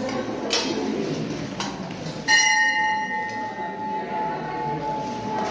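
Temple bell struck: a couple of lighter strikes, then one loud strike a little over two seconds in that rings on with a long, slowly fading tone.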